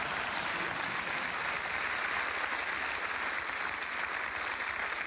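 Studio audience applauding: a steady, dense clatter of many hands clapping.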